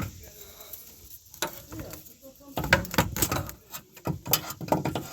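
Irregular clicking and knocking of metal hand tools, with a sharp knock at the start and a busier run of clicks in the second half.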